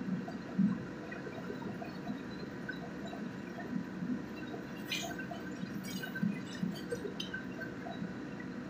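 Spicy snail sauce bubbling and simmering in a wok, a steady patter of small pops. A few sharp metal clinks come about five, six and seven seconds in.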